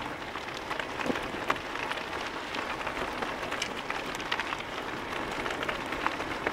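Bicycle tyres rolling over a gravel path: a steady crunching hiss dotted with irregular small ticks of loose stones.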